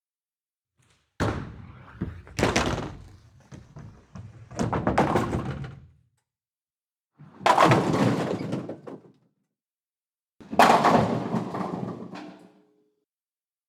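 Bowling pins being struck, five separate crashes in a row, each a sudden clatter that dies away over a second or two, with dead silence between them. The third builds up briefly before its crash.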